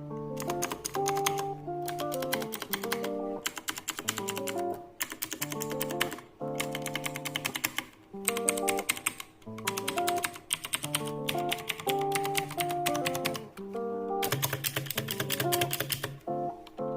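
Rapid typing on a Redragon Kumara mechanical keyboard with clicky Outemu Blue switches, in bursts of fast key clicks with short pauses between them. Background music with sustained notes plays under the typing.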